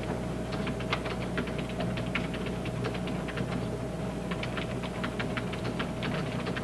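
Typing on a keyboard: irregular key clicks, several a second with short pauses, over a steady thin whine and a low hum.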